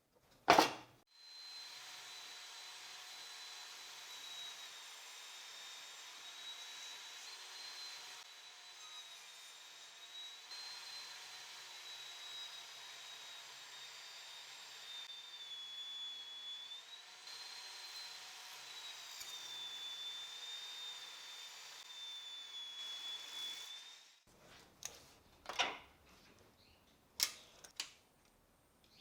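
Table saw running with a steady high whine while ripping boards to width, stopping after about 23 seconds; a few sharp knocks follow near the end.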